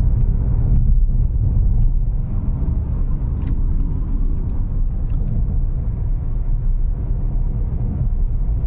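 Steady low road rumble heard inside the cabin of a Toyota Hyryder mild-hybrid SUV driving on a rough single-lane road, with a few faint ticks.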